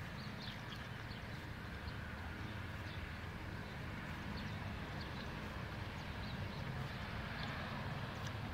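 Steady low outdoor rumble with faint, scattered short ticks over it.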